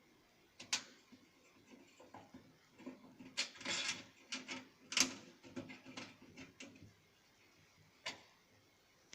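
Clicks, knocks and rattles of a desktop computer's case and parts being handled and fitted back together, with a sharp click about a second in, a busy cluster in the middle and a last click near the end.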